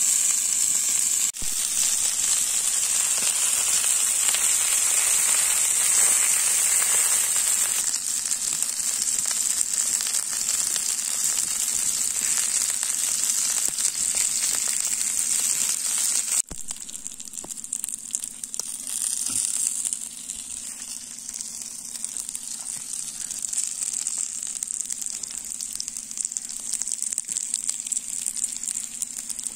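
Chicken tikka skewers sizzling in oil on a hot flat griddle plate: a steady frying hiss that drops to a softer sizzle after a sudden break a little past halfway.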